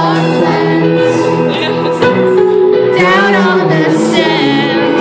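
Live band playing loud, with a male lead singer singing into a handheld microphone over electric guitar and sustained instrumental chords.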